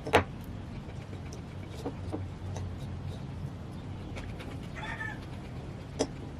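A short animal call, like a meow, about five seconds in, with a couple of sharp clicks over a low steady hum.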